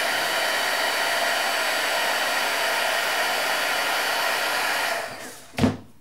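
Cheap pencil-nozzle heat gun running steadily, a hiss of hot air with a few faint steady tones, shrinking heat-shrink tubing on wires. About five seconds in it is switched off and its fan winds down, and a short, loud sound follows just before the end.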